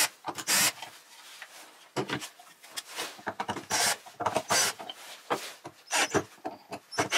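Cordless drill-driver backing screws out of a plywood frame in short, irregular bursts, mixed with rubbing and clatter from parts being handled.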